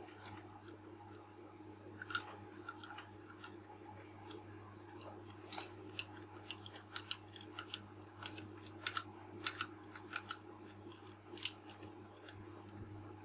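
Light, irregular clicks and ticks of small metal lens parts as the aperture ring of a Nikon Micro-Nikkor 55mm f/2.8 is worked onto the lens barrel, more frequent in the second half, over a faint steady hum.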